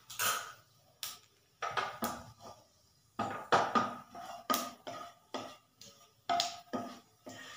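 A spatula knocking and scraping against a non-stick kadai while stirring cumin seeds frying in oil: a dozen or so irregular clinks, each ringing briefly.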